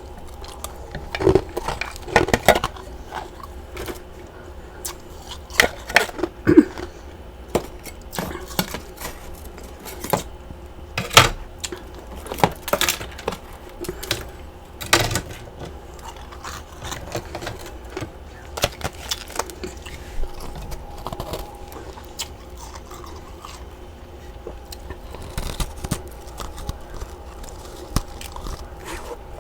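Close-up crunching of massive chunks of frost ice being bitten and chewed, in irregular crisp crunches with a few louder bites.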